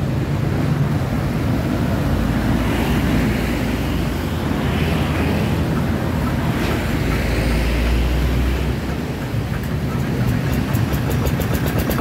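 A hand tractor's single-cylinder diesel engine is cranked by hand and catches near the end, then runs with a rapid, even beat, over steady street-traffic noise.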